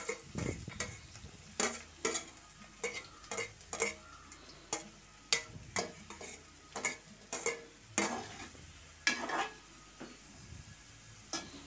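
Irregular clicks and scrapes of a spoon and utensils against a metal pan as chopped onions, green chillies and curry leaves are tipped in and stirred, over a faint sizzle of frying oil.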